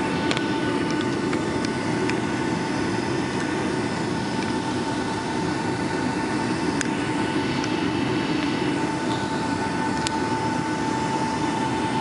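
Steady cabin noise of a Boeing 757-300 on the ground before takeoff: the low rumble of the engines at low power with a steady whine, and a few light clicks and rattles.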